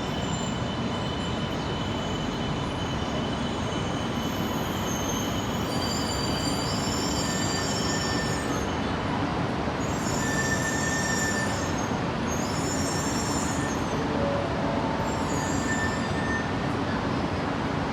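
A train rolling slowly with a steady rumble. Its wheels squeal high and thin in several short bouts, typical of wheel flanges rubbing on curved track or points.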